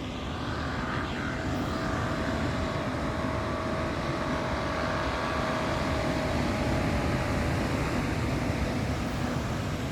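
A distant engine drone carrying a faint steady whining tone, swelling gently and easing off again.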